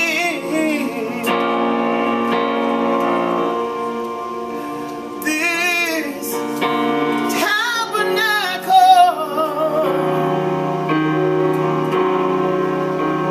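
Gospel song: a woman singing with a wide vibrato over piano or keyboard chords.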